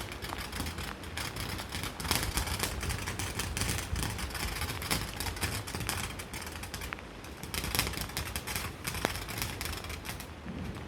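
Firework crackling: a dense, rapid stream of small sharp pops that thins out near the end.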